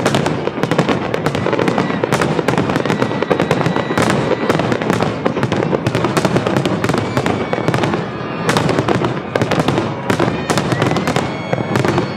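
Finale barrage of fireworks: shells bursting and crackling in rapid, near-continuous succession, with a few faint whistles near the end.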